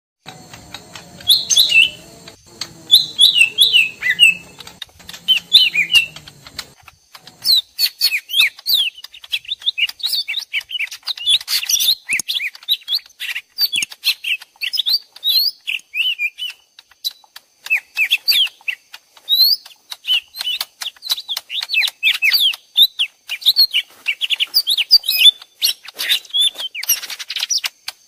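Two cucak ijo mini leafbirds calling back and forth in rapid chirps and whistled notes, like a fight: a mixed recording made as a trapping lure call. A low rumble runs under the first several seconds.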